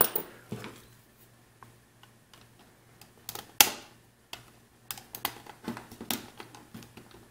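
Scattered light clicks and taps of small hand tools, a screwdriver and an Allen key, against a wooden workbench and a plastic camera housing. There is a sharp click at the start, another about three and a half seconds in, and a run of smaller ticks near the end.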